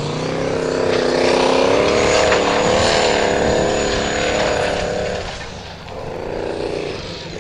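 Formula Offroad buggy's engine running flat out at high revs as it claws up a steep dirt slope. The revs hold for about five seconds, drop off, then pick up again near the end.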